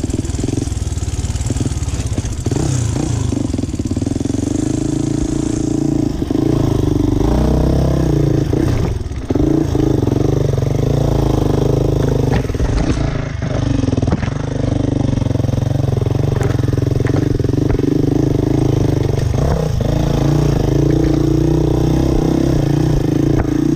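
Enduro dirt bike engine running under load on a rough trail, the revs rising and falling with the throttle. The revs dip briefly twice, about nine seconds in and again near twenty seconds.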